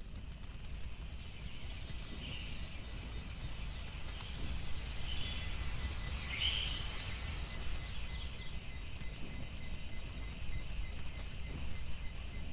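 Forest ambience: a few short bird chirps over a steady insect drone, with a low rumble of wind underneath.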